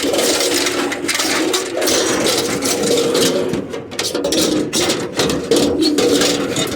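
Scrap metal and debris clattering and scraping as they are handled and shifted, with many small knocks and rattles.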